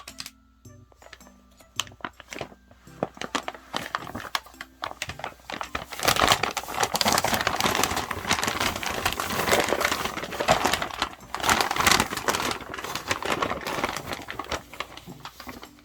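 Paper bag rustling and crinkling as a cat plays with it. Scattered crackles at first, then dense, loud rustling from about six seconds in that tapers off near the end.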